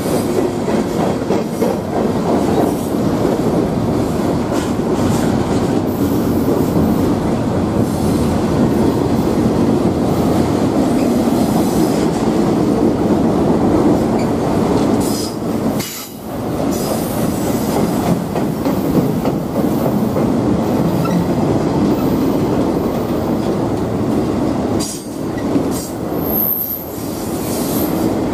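Freight train cars, tank cars followed by enclosed autorack cars, rolling past close by: a steady loud rumble of steel wheels on rail with clattering over the rail joints. The rumble dips briefly twice, and a thin high wheel squeal sounds near the end.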